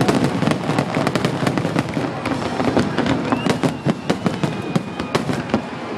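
Fireworks finale: a dense, rapid barrage of bangs and crackles, many bursts a second without a break.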